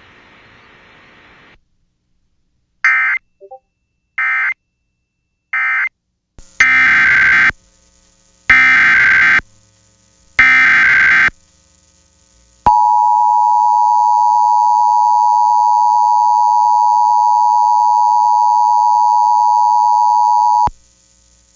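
Emergency Alert System tones between two broadcast warnings. First come three short buzzy data bursts, the end-of-message code. Then three longer data bursts, the SAME header of the next alert, are followed by the steady two-tone EAS attention signal for about eight seconds, which cuts off abruptly.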